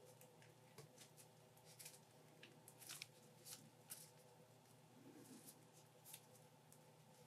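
Faint, irregular small clicks and rustles of nitrile-gloved hands handling a figma plastic action figure and its parts, over a steady faint hum.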